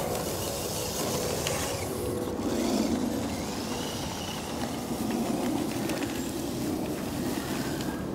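Radio-controlled 6x6 scale truck driving over dirt and leaf litter, its electric motor and geared drivetrain whirring steadily.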